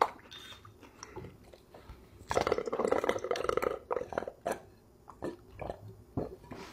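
A person gulping a drink straight from a glass bottle, with a dense run of swallowing and glugging about two seconds in that lasts about a second and a half, followed by scattered wet mouth clicks and smacks.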